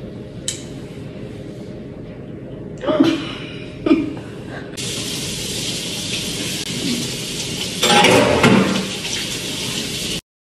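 Water running from a kitchen tap: a steady hiss that starts suddenly about five seconds in and cuts off abruptly near the end.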